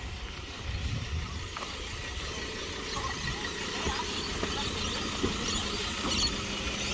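Outdoor street noise with a car engine running steadily and a few faint knocks.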